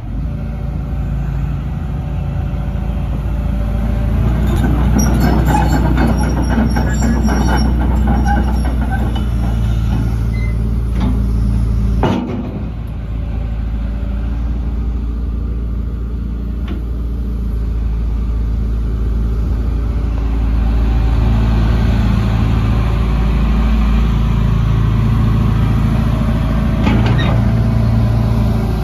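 Hitachi ZX225USLC-5B excavator's diesel engine running steadily, with a few knocks early on and a brief dip about twelve seconds in. From about two-thirds of the way through it runs louder and fuller as the machine works its boom and arm.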